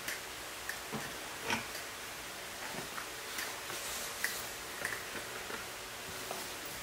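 Faint, scattered clicks and small rustles of handling over a steady hiss.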